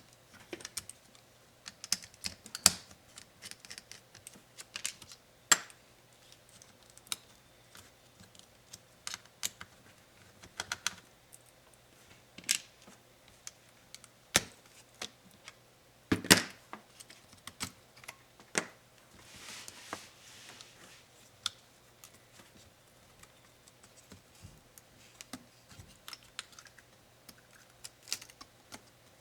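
Irregular light clicks and taps of a Dell Inspiron 7558 laptop's plastic and metal parts and small tools being handled during disassembly, with a louder knock about sixteen seconds in and a short scraping sound around twenty seconds in.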